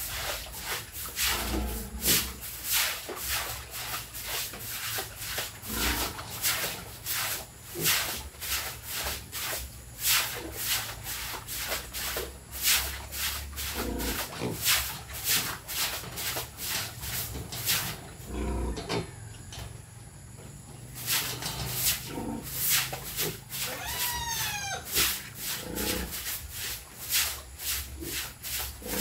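Repeated scrubbing strokes on the floor of a piglet pen, one or two a second, with a short pause about two-thirds of the way through. Low grunts from the piglets come in between, and a short run of high chirps sounds near the end.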